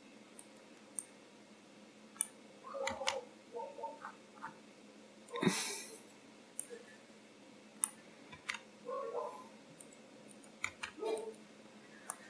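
Scattered sharp clicks of a computer mouse and keyboard, a dozen or so spread unevenly, with a louder brief noise about five and a half seconds in.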